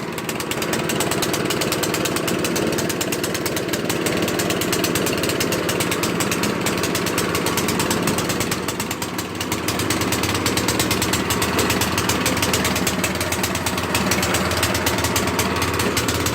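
Snowblower's small gas engine running steadily, its fast firing pulses even, with a brief drop in level about nine seconds in.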